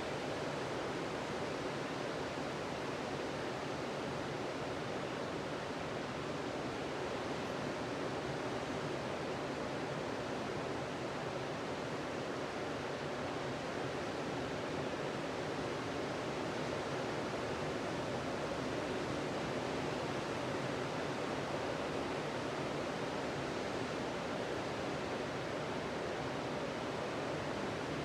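Ocean surf breaking on a sandy beach, a steady, even wash of waves with no single crash standing out.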